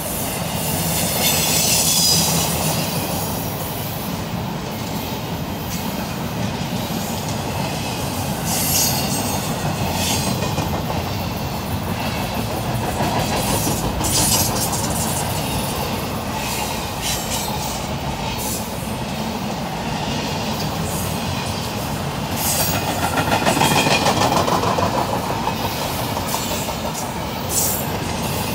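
Empty flat cars of a long freight train rolling past: a steady rumble of wheels on rail with scattered sharp clanks and clatter. The noise swells louder for a couple of seconds late on.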